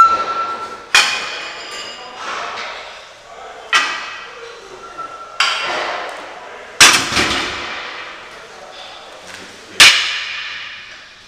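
Iron barbell and weight plates clanking, six sharp metallic clanks at uneven intervals, each ringing out briefly.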